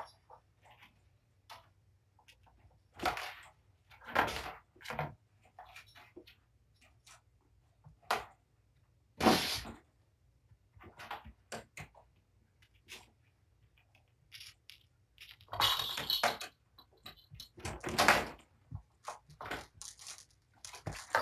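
Cats climbing and scrambling around a windowsill: irregular knocks, thumps and scratchy scrabbling of claws, loudest about nine seconds in and again around sixteen and eighteen seconds.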